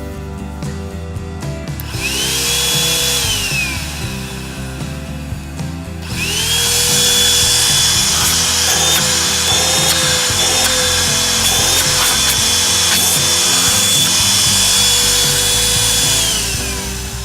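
Cordless handheld vacuum cleaner's 90 W motor switched on and whining up, then winding down after a second or so. About six seconds in it starts again and runs steadily for about ten seconds, its pitch wavering slightly now and then, before winding down near the end. Background music plays under it.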